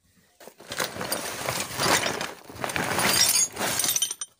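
A woven plastic sack rustling and crinkling as it is dragged off a pile of steel spanners and wrenches, with the tools clinking and clattering against each other.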